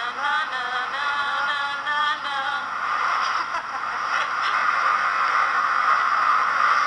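A voice singing held, wavering notes for the first two or three seconds, then giving way to a steady noisy hiss.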